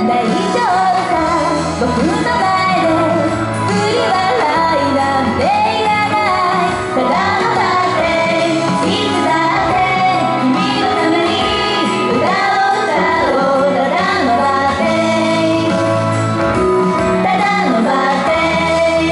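Female idol group singing pop into handheld microphones over a backing track, with a steady accompaniment under the voices.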